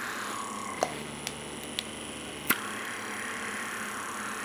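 Handheld suction microdermabrasion wand running with a steady hiss. Four sharp clicks come in the first two and a half seconds as the tip is worked over the skin, the last the loudest.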